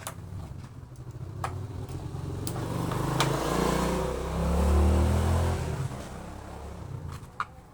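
A motor vehicle drives past: its engine grows louder, peaks a little past the middle, then fades away with its pitch dropping. A few sharp clicks sound in the first half.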